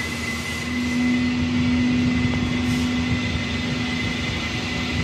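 Clay mixing machine running empty, its motor-driven vertical-shaft paddle agitator spinning in a stainless steel tank: a steady mechanical hum with a thin high whine. The hum swells a little louder about a second in and eases back after about three seconds.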